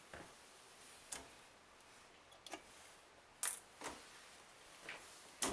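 A handful of short clicks and knocks, the loudest about three and a half seconds in and near the end, as the bidet's power plug is pulled out of a wall socket and the socket's hinged plastic cover is handled.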